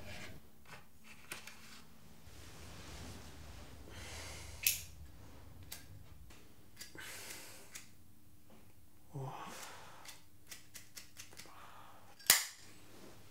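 A cigarette lighter being flicked again and again without catching: sharp separate clicks, then a quick run of clicks, and the loudest strike near the end. The lighter's flint is worn out.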